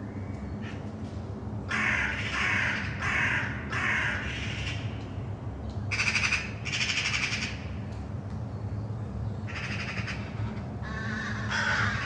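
Crows cawing harshly in short clusters of two or three caws, about ten in all, the territorial crows harassing other birds. A steady low drone runs underneath.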